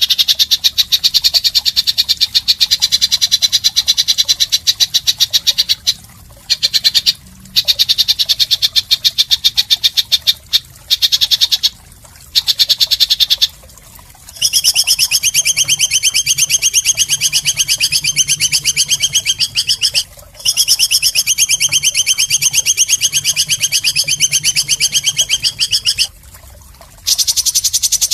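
A songbird's harsh, rapid rattling chatter: fast high-pitched clicking trills in runs of several seconds, broken by brief pauses, with a second, deeper-toned trill in the middle stretch. This is the 'isian kasar' (harsh fill) call of a masteran track used to teach songbirds new material.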